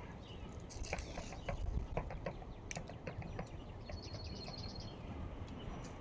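Small birds at a seed feeder: a scatter of sharp taps and wing flutters through the first few seconds, then a quick trill of about ten high, evenly spaced notes about four seconds in.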